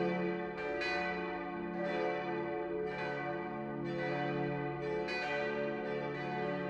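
Church bells ringing, a new strike about once a second with each ring hanging on under the next.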